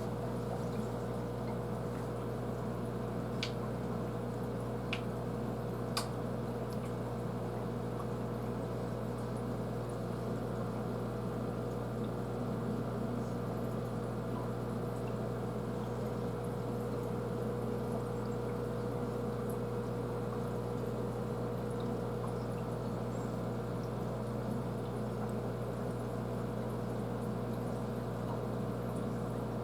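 Aquarium filter running: steady water trickle over a constant motor hum. Three faint clicks come a few seconds in.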